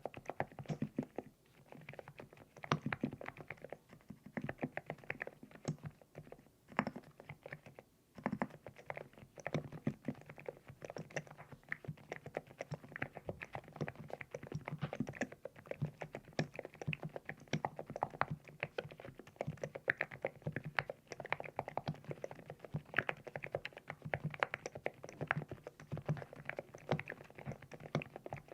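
Continuous typing on a LEOBOG Hi75 full-aluminium mechanical keyboard with Nude Rose switches: a quick, steady stream of keystrokes, with a few brief pauses in the first eight seconds. The keystrokes have the pebble-like clack the title calls it for.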